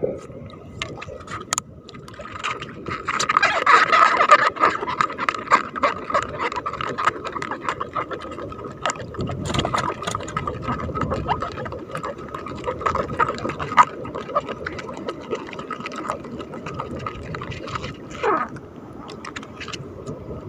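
Water splashing and lapping against a small outrigger boat as it is paddled, with scattered knocks against the hull. The splashing is loudest a few seconds in.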